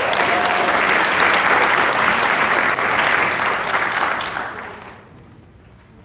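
Audience applauding, fading out about four to five seconds in.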